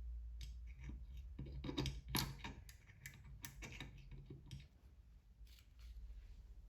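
Locking pliers (vise grips) being adjusted and clamped onto a screw: a run of irregular small metal clicks and snaps from the jaws and handles, set for more clamping pressure.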